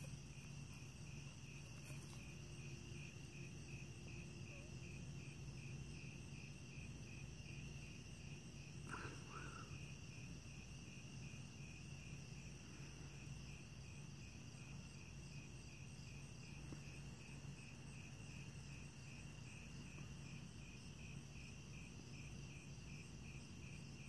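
Faint night-time insect chorus: a steady, rhythmically pulsing chirping with higher steady trilling above it, over a faint low steady hum.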